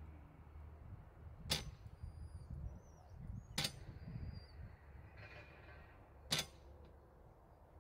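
Dog-training clicker clicking three times, a couple of seconds apart, marking the puppy's behaviour for a food reward.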